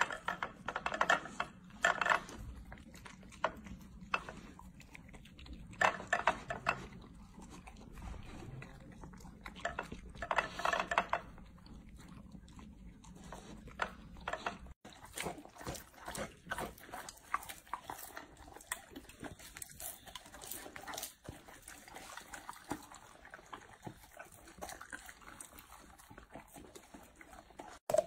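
Golden retriever puppy eating chopped raw vegetables from a plate: bouts of crunchy chewing, loudest in the first half.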